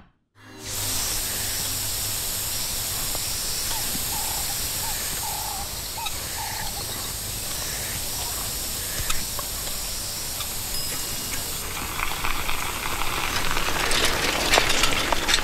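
Knapsack sprayer hissing steadily as it sprays pesticide over a green cereal crop against pests. A few faint chirps come in the middle.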